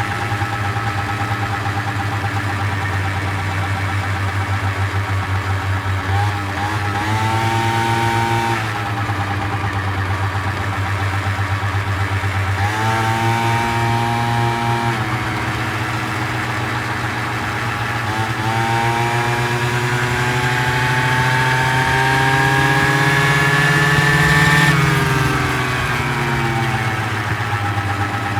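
Motor scooter engine running steadily, speeding up three times. The first two rises in pitch are short; the last is a long, steady climb that drops off suddenly about 25 seconds in.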